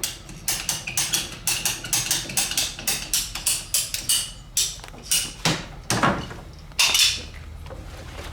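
PEX pipe cutter clicking as it is squeezed again and again to cut through PEX tubing: a run of sharp clicks, about three a second, spacing out near the end.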